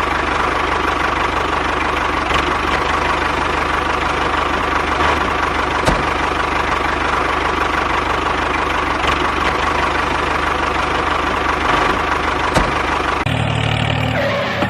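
Engine running steadily at idle, with a few faint clicks. The sound changes abruptly near the end.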